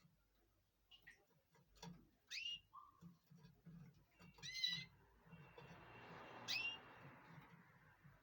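Domestic canaries giving three short chirped calls about two seconds apart, with small taps and a soft splashing noise in the second half as they bathe.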